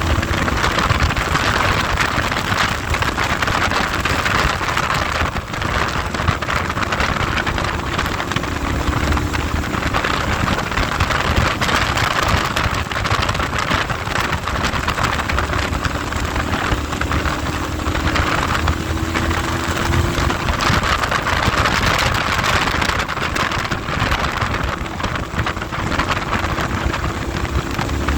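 Heavy wind noise rushing over the microphone of a moving motorcycle, with the engine faint underneath, its pitch slowly rising and falling.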